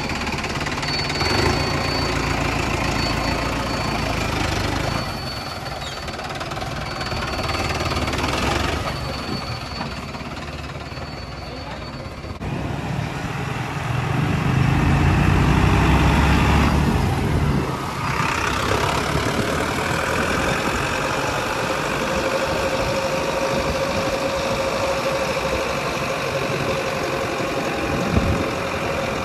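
Diesel tractor engine running with a knocking clatter. It grows louder and heavier for a few seconds past the middle, then settles back.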